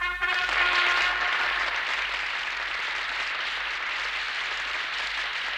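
Cartoon theatre audience applauding and cheering, a steady wash of clapping, as a brass fanfare ends in the first second.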